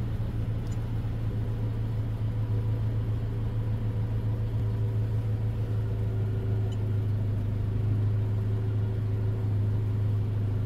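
Toyota car engine idling steadily, heard from inside the cabin as a constant low hum.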